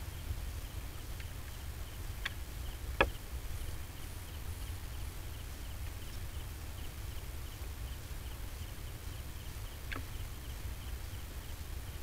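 Night-time trail-camera ambience: an insect chirping high and thin in a fast, even rhythm over a steady low rumble. A few sharp clicks cut in, the loudest about three seconds in.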